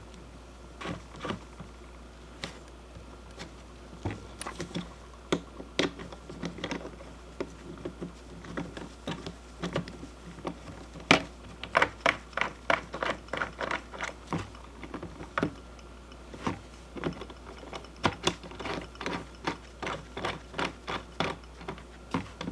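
Irregular sharp clicks and taps of hard objects, coming in quicker runs of about four or five a second about halfway through and again near the end.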